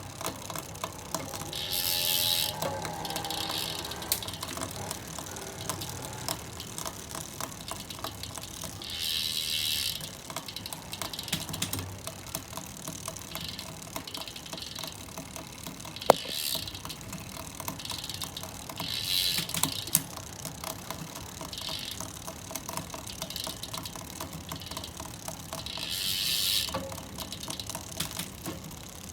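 Rapid mechanical clicking, like a ratchet, running throughout, with short bursts of hiss every few seconds.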